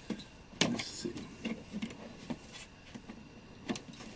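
Fingers scratching, tapping and rustling on a cardboard shipping box as it is worked open, with a sharper knock about half a second in and another near the end.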